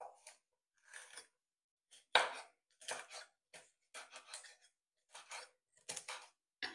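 Kitchen knife chopping green pepper on a wooden cutting board: a dozen or more short, irregular cuts knocking on the board, the loudest about two seconds in.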